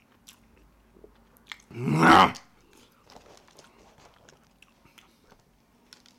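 Close-miked wet chewing and lip-smacking of a mouthful of Big Mac, with one short, loud moan about two seconds in.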